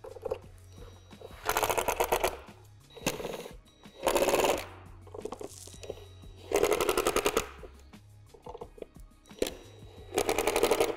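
Cordless driver driving screws through a metal square tube into a plastic shed panel, in about five short bursts, each a fast rattle.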